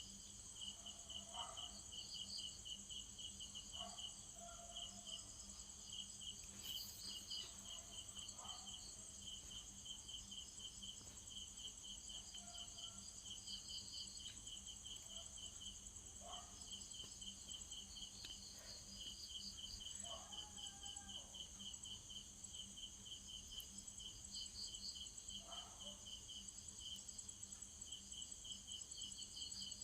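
Crickets chirping in a steady, rapidly pulsing trill, with a few faint short sounds scattered through it.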